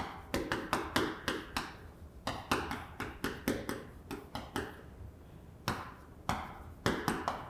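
Chalk writing on a chalkboard: a quick run of sharp taps and short strokes as the letters are formed, with a pause of about a second and a half just past the middle.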